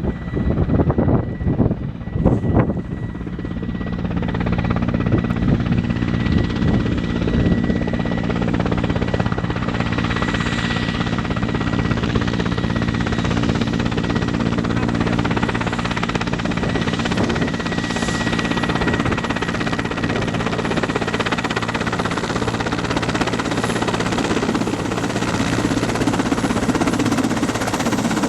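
Helicopter running steadily, a continuous engine and rotor hum with several low tones held constant. The first couple of seconds carry an irregular gusty rumble before the steady hum settles in.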